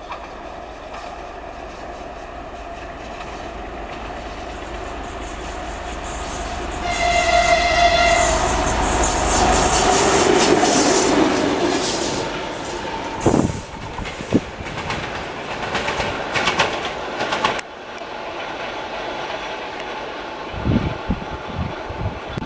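TEM18DM shunting diesel locomotive approaching and passing close by, its engine growing louder. The horn gives one blast of about a second about seven seconds in, then the engine and wheels run past with a couple of loud knocks over rail joints. The sound breaks off sharply, leaving the locomotive's engine fainter, with irregular low knocks near the end.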